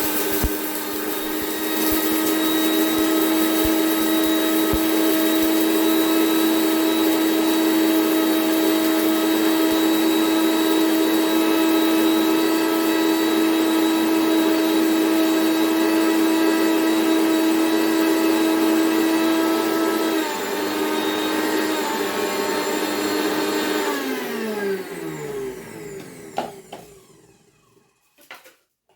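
Prestige Deluxe Atlas 750 W mixer grinder running at speed, grinding a small quantity of dry masala spices to powder in its jar with a steady high motor whine. Near the end it is switched off and the whine falls in pitch as the motor winds down to a stop.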